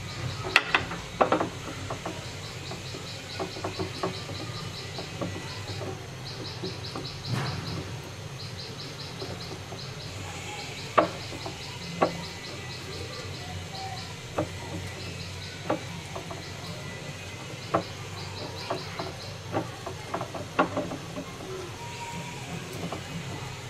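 A hand kneading a wet prawn pakora batter of gram flour, rice flour and chopped onion in a glass bowl: soft squishing with scattered sharp clicks. Behind it, a high chirping in quick trains of pulses keeps starting and stopping.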